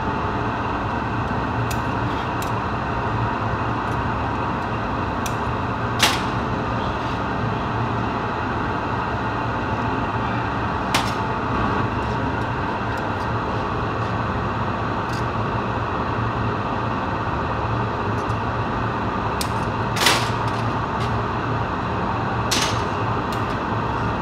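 Steady rushing hum of a glassblowing workshop's furnace and burners, with a few sharp clinks of metal hand tools against the glass and bench.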